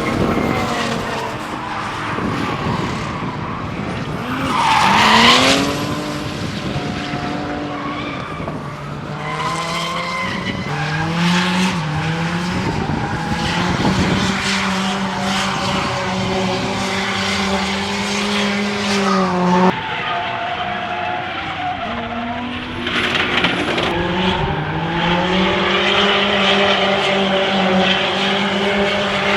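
Race cars on track, engines revving hard with the pitch climbing and dropping through throttle changes and gearshifts, over tyres squealing and skidding. One car swells loudest as it passes close about five seconds in.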